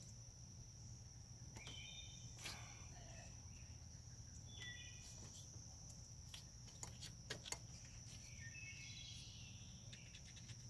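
Faint outdoor quiet: a steady high insect trill, typical of crickets, and a few short bird chirps. Around the middle come several small sharp clicks of hands working plastic clips and connectors on the engine, the loudest a little past halfway.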